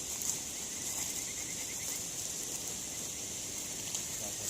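Outdoor night ambience: a steady, high-pitched chorus of insects, with a short rapid trill about a second in. A campfire crackles faintly now and then.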